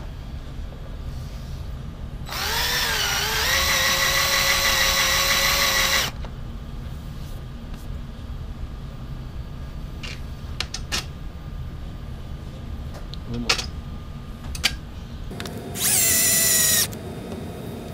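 Cordless drill countersinking a screw hole deeper in a metal 3D-printer bed plate. It runs once for about four seconds, wavering up in pitch at first and then holding steady, and again briefly for about a second near the end, with a few light clicks in between.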